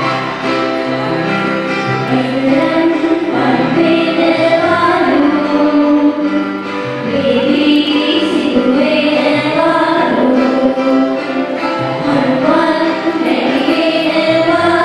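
A song with voices singing a melody over instrumental accompaniment, the music for a stage dance.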